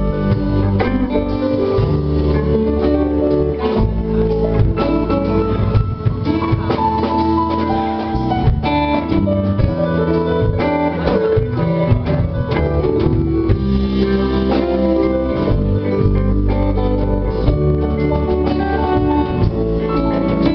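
Live band playing an instrumental passage on electric guitar, electric bass and drum kit, loud and steady throughout.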